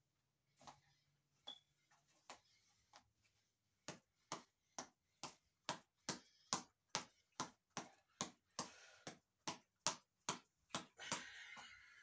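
Boxing reflex ball on a headband cord being punched over and over: a few scattered taps at first, then from about four seconds in a steady run of sharp smacks, about two a second, that grows louder. Short rushes of noise come in between the smacks near the end.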